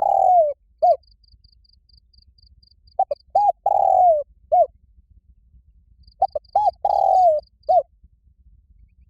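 Spotted dove giving its loud challenge call: three cooing phrases about three seconds apart, each a couple of short coos, a long coo that falls away at the end, and a last short coo. A faint, rapid high ticking runs in the background.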